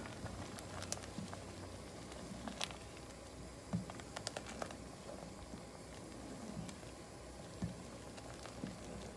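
A black spoon stirring thick chicken gnocchi soup in a stainless steel pot, with the soup thickening from the added roux: quiet wet stirring with scattered light taps and clicks of the spoon against the pot.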